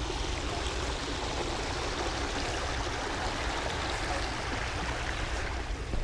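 Shallow creek water running over rocks in a small riffle, a steady rushing trickle.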